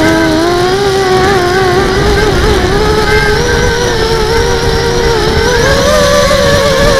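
Brushless motors and propellers of a 250-size FPV racing quadcopter whining in flight, the pitch wavering with throttle and rising about five and a half seconds in.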